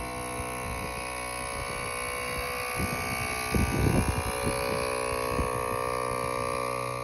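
ARB high-output 12-volt onboard air compressor running steadily while it inflates a tyre through a coiled air hose, making the constant, noisy whine and drone of its motor and pump. A brief louder low rumble comes in about three and a half seconds in.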